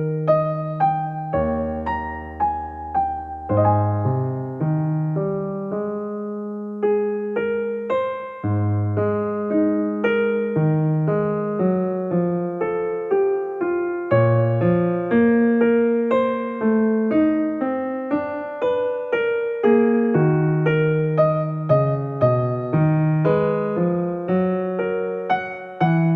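Background music: a keyboard melody on electric piano, with struck notes that fade and chords beneath.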